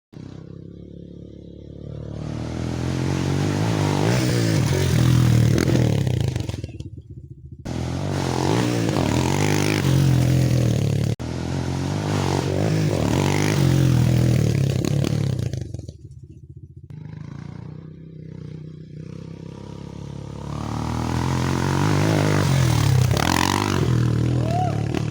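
Bashan Brozz 250 dual-sport motorcycle's single-cylinder engine being ridden on a trail, the throttle opened and closed in repeated surges, rising to full pulls and dropping back to a lower run between them, with some rattle from the bike over rough ground.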